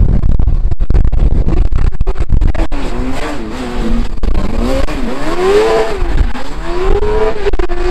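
Racing car engines on a track, running hard. A dense low rumble fills the first three seconds. After that the engine notes climb and fall again several times as the cars rev up and lift off.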